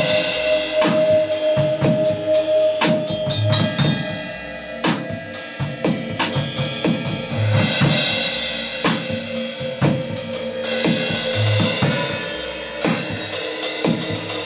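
Acoustic drum kit played in a steady groove of bass drum, snare and cymbals, the cymbal wash swelling about halfway through and again near the end.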